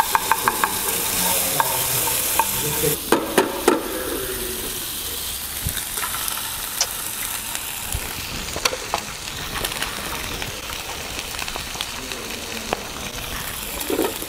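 Eggs frying in butter in a pan, giving a steady sizzle. A quick run of sharp clicks comes right at the start and a few more about three seconds in.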